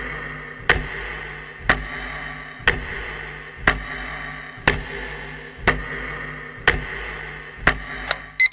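A countdown clock ticking steadily about once a second over a soft sustained tone. A bright electronic alarm beep starts right at the end.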